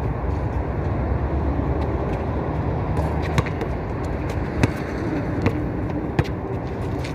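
Basketball bouncing on an outdoor court, a handful of sharp thuds spaced unevenly through the second half, over a steady low rumble.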